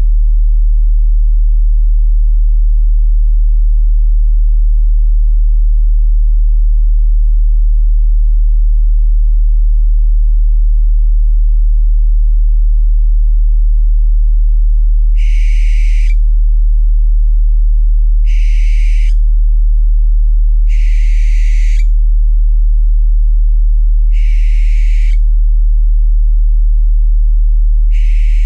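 A steady deep tone hums throughout, the loudest sound. From about halfway, an owl gives five harsh, hissing screeches of about a second each, a few seconds apart.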